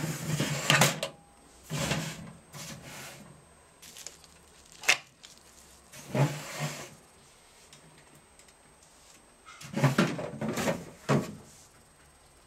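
Hard plastic cover of a Bernina 1090 sewing machine being handled: knocks and clatters in several short bursts, with a single sharp click about five seconds in.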